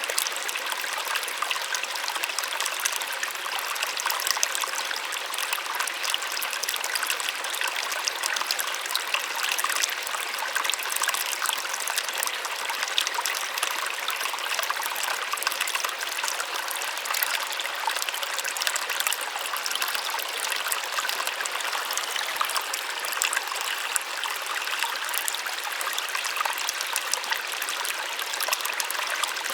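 Small waterfall splashing and trickling steadily, a bright, even hiss of falling water with little low rumble.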